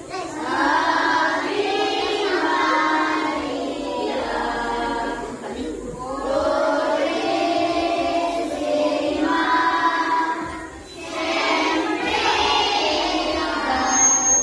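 A church congregation of children and adults singing together without accompaniment, in long phrases broken by short pauses. A brief high-pitched tone sounds near the end.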